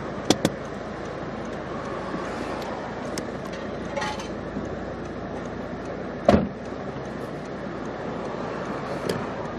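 Steady street traffic noise, with two sharp clicks about half a second in and one heavy thump a little past six seconds in.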